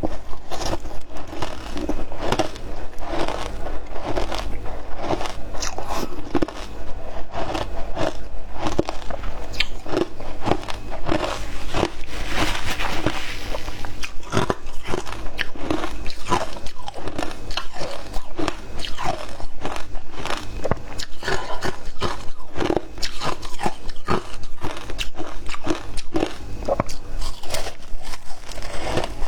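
Frozen matcha ice being bitten and chewed: a continuous run of sharp, crisp crunches and cracks.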